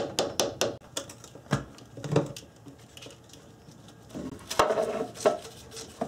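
Metal clinks and knocks as a metal valve cover is worked loose and lifted off a Toyota 1GR-FE V6 cylinder head: a quick run of sharp taps at the start, a couple of single knocks, then a clatter about four seconds in.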